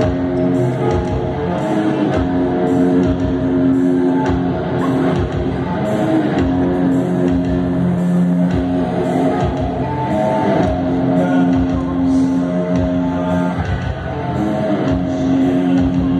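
Live rock band playing an instrumental passage: electric guitar chords held long over drums with a steady cymbal beat.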